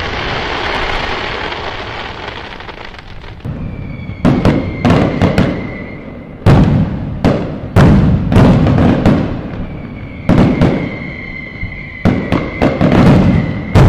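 Aerial fireworks bursting: the fading crackle of a big burst, then from about three and a half seconds in a quick run of loud sharp bangs, one or two a second. A thin, steady high tone rings over some of the bangs.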